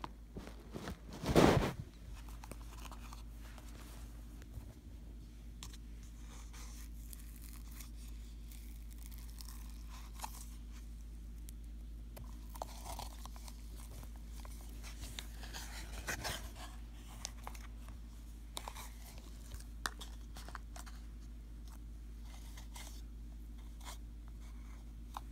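Fingers squishing and pinching slime in a plastic tub: quiet, scattered crackles and small pops. There is one loud bump about a second and a half in.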